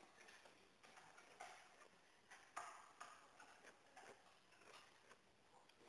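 Faint, irregular clinks of metal chopsticks and spoons against metal food trays, a few separate clicks over a quiet background.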